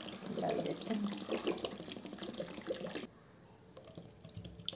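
Water pouring and splashing into a pressure cooker full of chicken pieces and vegetables. It cuts off suddenly about three seconds in, leaving only a few faint drips and clicks.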